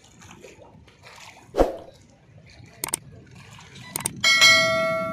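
Faint wash of floodwater lapping. Then a subscribe-button sound effect: a knock about a second and a half in, two mouse clicks, and a bell chime ringing out loudly near the end, fading slowly.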